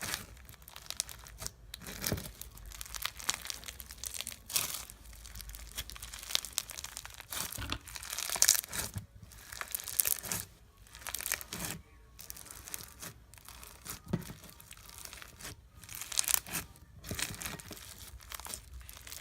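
Hands squishing and stretching a white slime with foam beads in it, giving irregular crackling in short bursts, loudest about eight seconds in.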